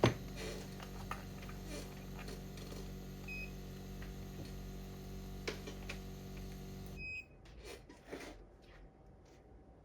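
Steady electrical hum from running repair-bench equipment, with a short electronic beep about three seconds in. About seven seconds in the hum cuts off abruptly with another beep, followed by a few light clicks.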